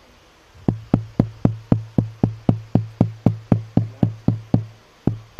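Sharp, even knocks through a public-address microphone, about four a second, over a low electrical hum, with a short break near the end: the microphone, which had just stopped working, being tapped to test it.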